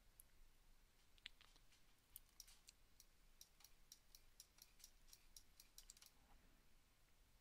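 Faint clicking at the computer: a few single clicks, then a quick run of about four clicks a second from about two seconds in until about six seconds in, over near silence.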